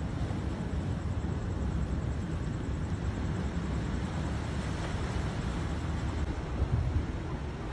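Steady low outdoor rumble with no firework bangs, a lull between fireworks bursts, with a couple of slightly louder low thumps near the end.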